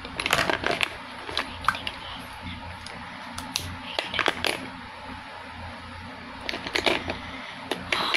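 Small skincare and makeup items handled close to the microphone: irregular clicks, taps and rattles, over a steady low hum.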